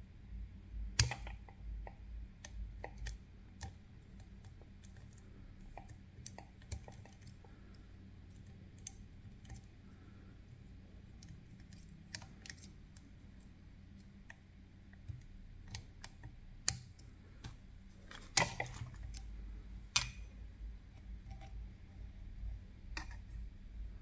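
Lock-picking tools working inside a Picard Vigie lock: scattered, irregular metal clicks and small knocks as the pick and tension tool work the lock, with a few louder clicks about a second in and again near the end.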